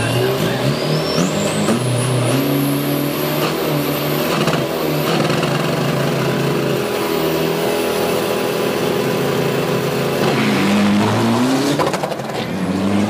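Isuzu D-Max 3.0-litre turbo-diesel drag-race pickups held at high revs on the start line, with a high turbo whine climbing in steps. About ten seconds in, the engine note dips and then climbs again as a truck launches and accelerates away.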